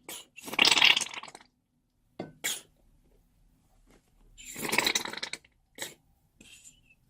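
Slime being squeezed out of a piping bag: two noisy bursts about a second long, one near the start and one about two-thirds of the way through, with a few short clicks and pops between them.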